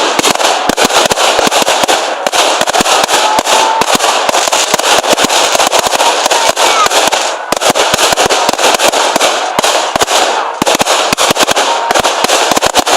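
Fireworks display going off: a dense, continuous crackle of many rapid overlapping pops and bangs, easing briefly about seven and a half seconds in before picking up again.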